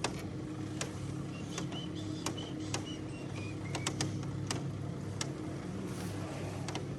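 Cable lift descending inside a volcanic crater: a steady low machinery hum with irregular sharp clicks, about one or two a second.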